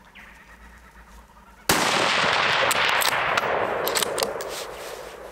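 A single shot from a Tikka T3x CTR rifle in .223 Remington about one and a half seconds in, its report rolling on and fading over the next three seconds. A few sharp clicks follow as the bolt is worked to chamber the next round.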